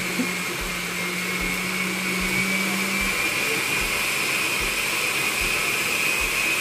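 Countertop blender with a glass jar running steadily as it purées a watery chili sauce, a high motor whine over the even churning noise, the whine creeping slightly higher in pitch.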